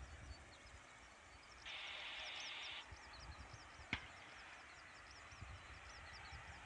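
Air-band radio receiver between transmissions: a brief burst of static hiss about two seconds in, lasting about a second, and a single click near the middle, over faint repeated high chirps.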